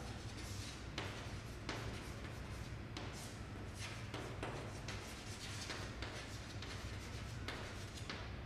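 Chalk scratching and tapping on a blackboard as a line is written: a run of short, irregular strokes over a steady low hum.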